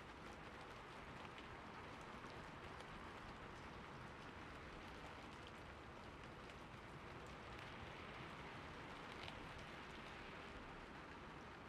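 Faint, steady fountain water splashing and trickling, with scattered small drip-like ticks.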